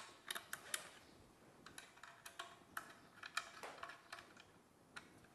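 Hex key turning a screw on a plunge saw's base plate: faint, irregular small metallic clicks and ticks as the key is seated and turned, a quick cluster in the first second and more spread through the middle.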